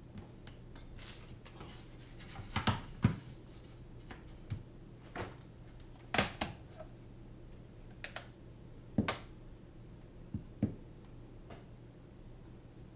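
Hands setting weighing gear down on a workbench: about a dozen irregular clicks and knocks of a plastic cover, a metal tray and a clipboard being placed and adjusted, the loudest about 3 and 6 seconds in. A very short high chirp comes under a second in, over a faint steady low hum.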